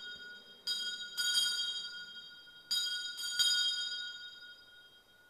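Altar bells rung at the elevation of the consecrated host. There are two rounds of ringing, about a second in and about three seconds in, each of two quick strikes. Clear high tones ring on after each strike and fade away toward the end.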